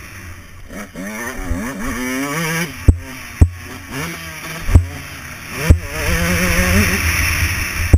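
Dirt bike engine revving up and down as it rides a motocross track, its pitch rising and falling several times, with a handful of sharp loud knocks over the bumps.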